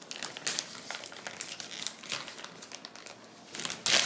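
A cheese package crinkling and rustling in short, scattered crackles while cheese is sprinkled onto a pizza, swelling into a louder, denser rustle near the end.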